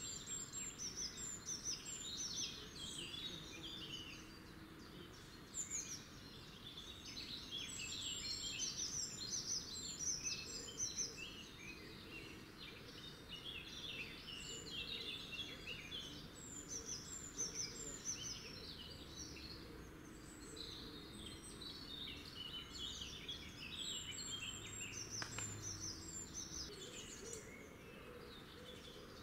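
Small songbirds singing and chirping continuously, many quick overlapping phrases, over faint outdoor background noise.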